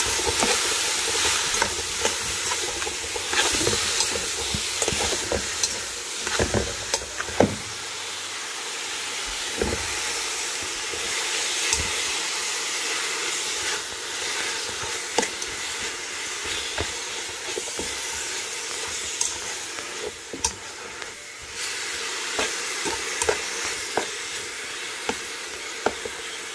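Squash greens and squash blossoms sizzling in a large aluminium pot while a metal spoon stirs them, scraping and clicking against the pot at irregular moments. The sizzle grows a little quieter over the last several seconds.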